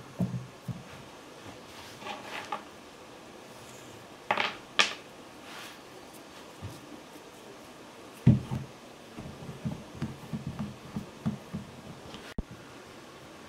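Hands working soft clay: a couple of sharp slaps and tearing sounds as a piece is pulled from a clay block, then a run of soft, low, uneven thuds as a thick clay coil is rolled back and forth under the palms on the work table.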